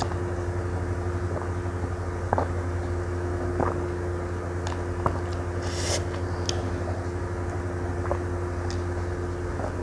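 A person drinking juice from a plastic cup in one long drink, with a few faint swallowing clicks every second or so over a steady low hum.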